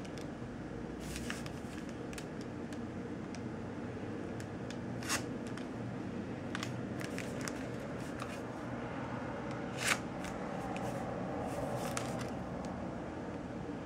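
A knife blade slitting open a paper envelope, with paper rustling and crackling and a few sharp ticks, the loudest about five and ten seconds in, over a steady low hum.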